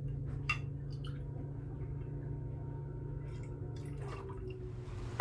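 A few faint clinks and small liquid sounds of a drink being mixed, over a steady low hum.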